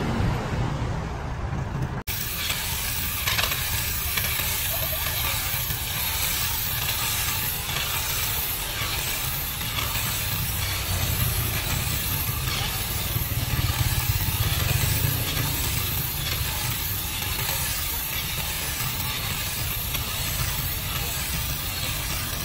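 Kutan cordless mini grass and hedge shear running with its short blade, cutting through weeds as a steady hissing noise over a low rumble, with a brief break about two seconds in.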